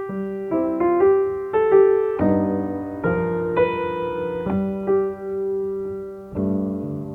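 Slow piano introduction to a ballad: single notes and chords struck one after another, each left to ring and fade, changing every second or so, with no singing yet.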